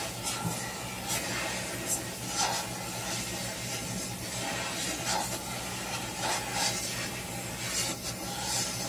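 Gas torch flame hissing steadily against the bent steel front frame rail of a 2020 Kia Rio, heating it for straightening, with short irregular rushes of louder hiss every second or so.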